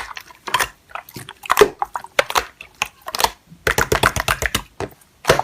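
Slime being pressed and worked by hand, giving crisp crackling clicks and pops, with a quick run of about ten clicks around four seconds in.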